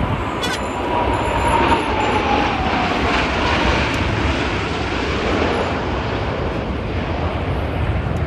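Blue Angels F/A-18 Super Hornet jet passing overhead, a steady loud jet roar with a whine that falls in pitch over the first couple of seconds as it goes by.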